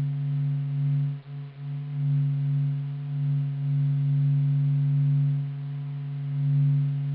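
NASA's sonification of the Sun: vibrations of the Sun recorded by the SOHO satellite and converted into sound. A low, steady hum with a few overtones above it, slowly swelling and easing in loudness.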